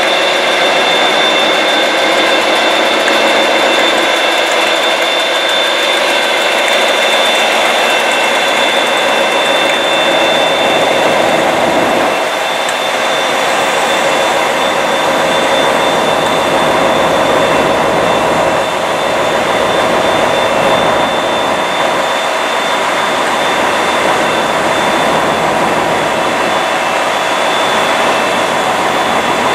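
Direct Rail Services Class 57 diesel locomotive's EMD 645 two-stroke V12 engine running loudly and steadily, with a high, steady turbocharger whine, as the locomotive-hauled train moves slowly through the platform.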